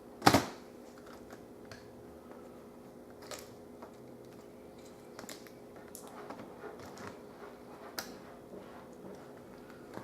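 Small clicks and taps of laptop screen-assembly parts and screws being handled during reassembly, with one louder knock right at the start, over a faint steady hum.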